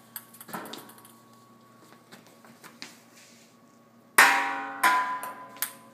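Ping-pong ball bouncing faintly in light ticks on a hard floor, then a sudden loud sound about four seconds in that rings on as it dies away, followed by two more loud hits.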